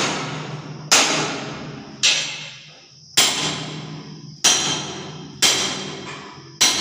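Hammer blows driving nails, six strikes at about one a second, each followed by a ringing tail that dies away before the next.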